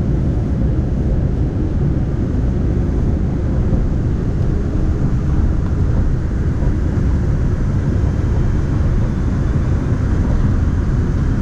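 Steady low rumble of a Daegu Metro Line 3 rubber-tyred straddle monorail car running along its elevated guideway, heard from inside the car.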